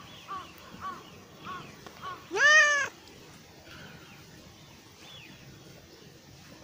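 A cat meows once, loudly, a little over two seconds in: a single call that rises in pitch and then holds for about half a second. Before it come a string of short, fainter calls about twice a second.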